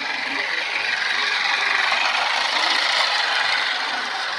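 Toy train's electric motor and gears whirring, with the wheels clattering along the toy track as it pulls a string of small cars, growing louder about halfway through as it passes close and then easing off.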